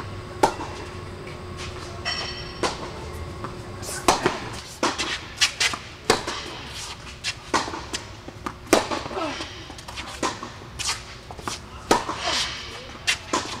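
Tennis balls struck by rackets and bouncing on an indoor hard court during a rally: a string of sharp, irregular pops.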